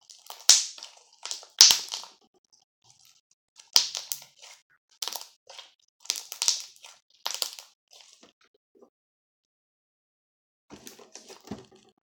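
Slime squeezed and stretched by hand, giving wet crackling pops in separate bursts, about six in the first eight seconds, then softer crackling near the end.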